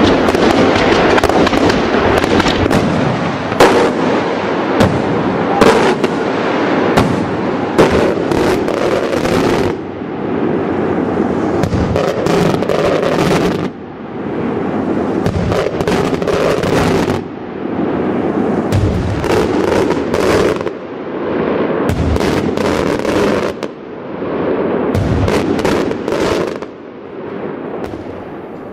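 Daylight aerial fireworks shells bursting overhead. Many sharp bangs come close together in the first ten seconds, then swells of dense crackling noise a few seconds long follow with fewer bangs.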